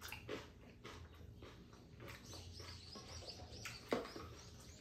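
Chopsticks clicking against a pan and bowl and faint eating sounds, with a sharp chopstick tap on a plastic bowl about four seconds in. A bird chirps in a quick run of short high notes around the middle.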